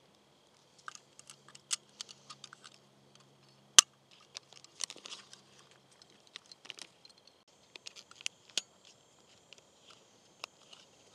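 Small clicks, snaps and paper crinkles of 120 roll film being loaded into a Hasselblad 500C/M film back, with one sharp click about four seconds in.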